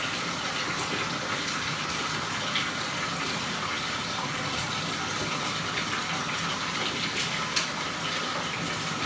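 Water running steadily from a tap into a bathtub, with one short knock about seven and a half seconds in.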